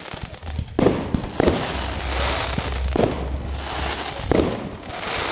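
Fireworks display going off: sharp bangs about a second in, at one and a half, three and four and a half seconds, over a steady crackling hiss from the bursting stars.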